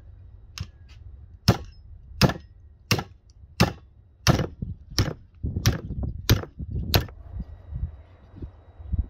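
Small hatchet chopping through a rack of lamb ribs onto a wooden stump block: about ten sharp chops at an even pace, roughly three every two seconds, stopping about seven seconds in.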